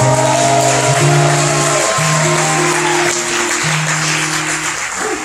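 Live band playing slow, held chords, the low bass note shifting about once a second, with audience applause underneath.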